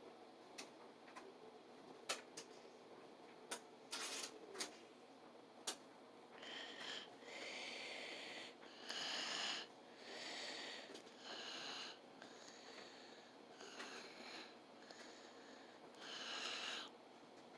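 A few sharp clicks, then a person breathing heavily in short noisy puffs about once a second.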